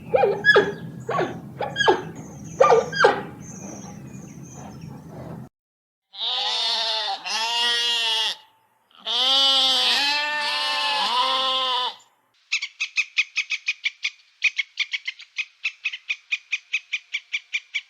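Three animals in turn. First, short squeaky calls over a low hum. Then four long, wavering goat bleats. Then a squirrel's rapid chattering chirps, about four a second.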